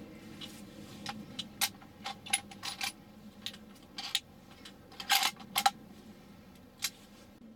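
A run of irregular sharp clicks and light rattles, the loudest cluster about five seconds in, over a faint steady low hum.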